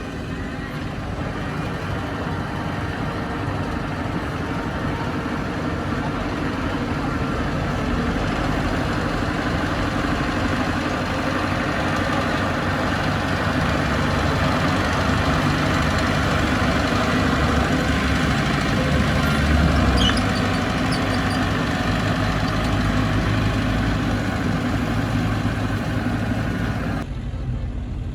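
Bulldozer's diesel engine running steadily under load, with its low engine note and a noisy mechanical haze. The higher part of the sound drops away abruptly near the end.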